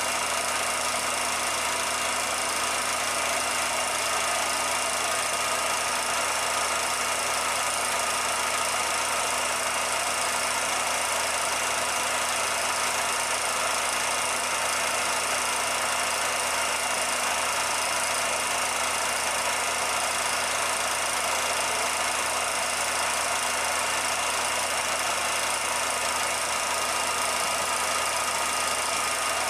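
Steady mechanical hum and hiss with a few constant tones, unchanging throughout, like a machine running at an even speed. None of the potter's work is heard: the film itself has no sound.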